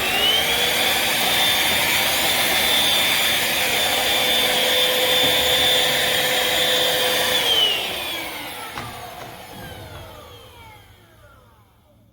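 Black+Decker PowerSeries+ 20V MAX cordless stick vacuum's motor whining. Its pitch rises just after the start, then holds steady. After about seven and a half seconds it is switched off and spins down over about four seconds, the whine falling in pitch and fading.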